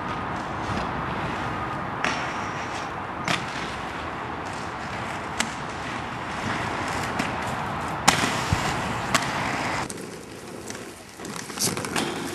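Inline skate wheels rolling over pavement as a steady rough noise, broken by several sharp clacks and knocks of skates landing and striking rails and ledges. The rolling noise drops away about ten seconds in, and a few more knocks follow near the end.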